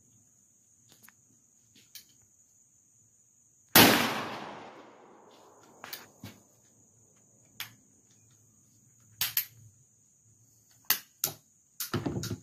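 A single shotgun blast from a break-action single-shot shotgun about four seconds in, its echo dying away over about a second and a half. Scattered metallic clicks follow as the gun's action is handled, bunched near the end. A steady high insect chirr runs underneath.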